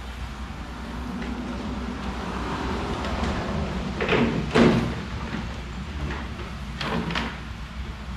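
Clunks and rattles of metal tools and go-kart parts being handled, with sharp knocks about four seconds in and again near seven seconds, over a steady low hum.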